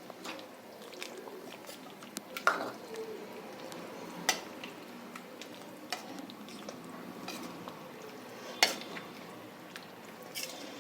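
A spoon stirring chicken curry in a pot, with scattered clinks and knocks of the spoon against the pot. The loudest knocks come about two and a half, four and a half and eight and a half seconds in.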